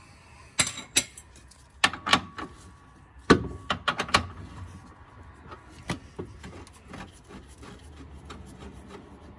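Irregular metallic clicks and clanks of a socket ratchet and extension on the front sway bar bracket bolts as they are loosened. The loudest clank comes a little over three seconds in, with lighter ticks after.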